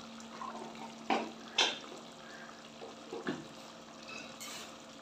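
Thick meat masala sizzling and bubbling in a stainless steel pot on a gas flame while it is roasted (bhuna), with three sharp clinks of a metal spoon against the pot, two just after a second in and one a little past three seconds.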